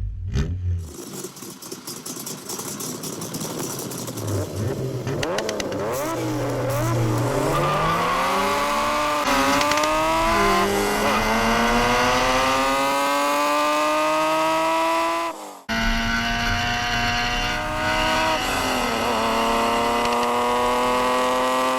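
Car engine sound effect of a race car accelerating: the revs climb, drop back at each gear change and climb again several times, with a brief cut-out about fifteen seconds in.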